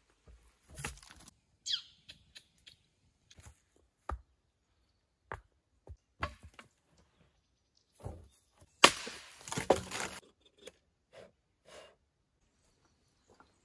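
Scattered knocks and clatters of rocks and cut wooden poles being handled and set in place, with a longer, louder wooden clatter about nine seconds in.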